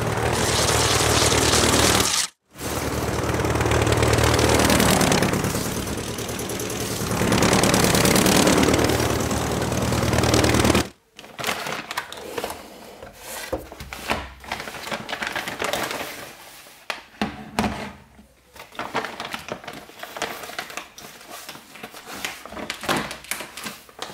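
A small motor runs steadily and loudly, stops briefly about two seconds in, and cuts off about eleven seconds in. Irregular clicks and taps follow.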